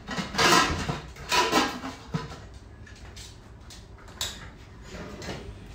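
Metal pressure cooker and its lid being handled: two clattering, scraping sounds in the first two seconds, then a few light clicks and knocks.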